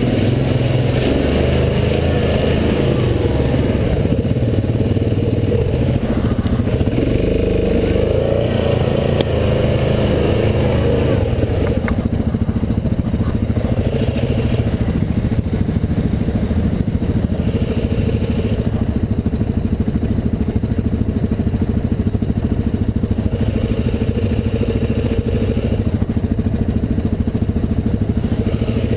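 Yamaha Grizzly ATV engine running under throttle while riding a rough trail, its pitch rising and falling in the first half and steadier later.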